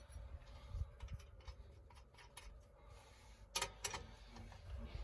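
Wheel spanner being worked on car wheel nuts: faint metal rubbing and light clicks, with two sharper clicks close together about three and a half seconds in.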